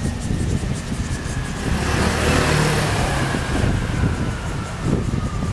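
A road vehicle passing near the crossing: engine and tyre noise, loudest about two to three seconds in, with a faint tone that slowly falls in pitch.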